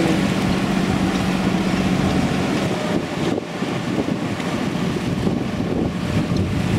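Wind buffeting the microphone over the rush of water along the hull of a sailing yacht under way. A steady low hum sounds beneath it for the first two seconds or so, then fades out.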